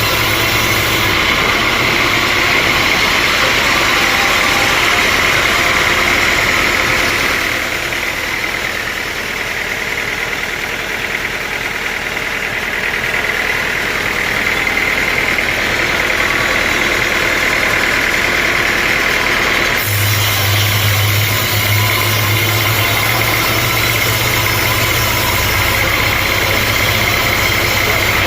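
Sawmill machinery running steadily with a constant high whine from the saw and its drive. About two-thirds of the way through, a deeper low hum sets in.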